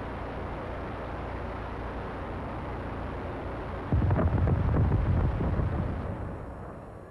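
A steady rushing noise, then about four seconds in a sudden loud explosion with a deep rumble that fades away over the next three seconds: an Exocet anti-ship missile blowing up as the Goalkeeper close-in weapon system destroys it.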